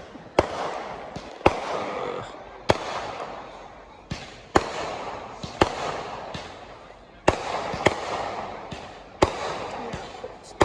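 Fireworks going off: about ten sharp bangs a second or so apart, each trailing off in crackle.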